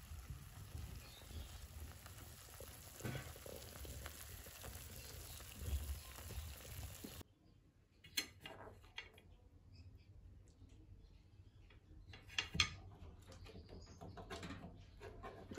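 Chicken breasts frying in sauce in a frying pan, a faint steady sizzle. About halfway through this gives way to a metal utensil clinking and scraping against the pan a few times, the sharpest clink a little before the end.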